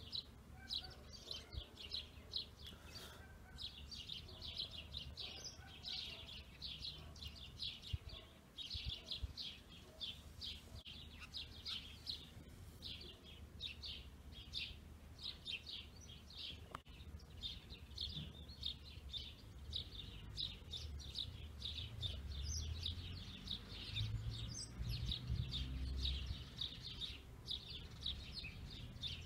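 Small birds chirping, a rapid run of short high chirps several times a second, over a low rumble.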